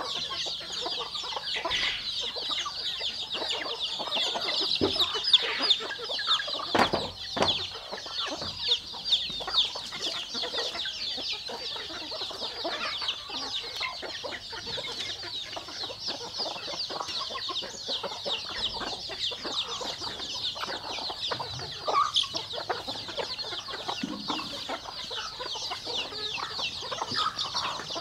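A flock of chickens at feed: dense, continuous high peeping of chicks with hens clucking underneath. A few sharp knocks stand out about five to seven seconds in.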